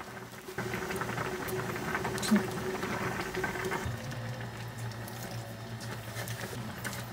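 Hands laying Asian chives onto thin slices of raw beef on a paper towel, with soft rustles and light taps and one louder tap a little over two seconds in. A steady low hum runs underneath.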